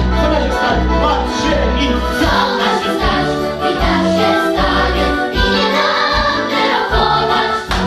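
Children's choir singing a Polish song together over an instrumental accompaniment with a bass line of repeated low notes.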